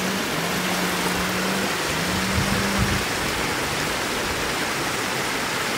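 Steady rushing hiss of shallow floodwater running across a road, with a low droning tone that breaks off and resumes every second or so.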